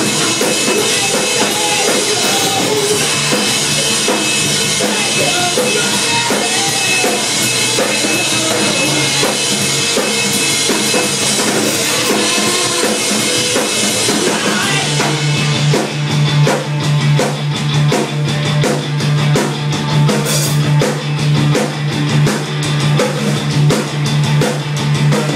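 Rock band playing, with drum kit, guitar and bass. About halfway through, a heavy repeating bass line comes in under sharper drum hits.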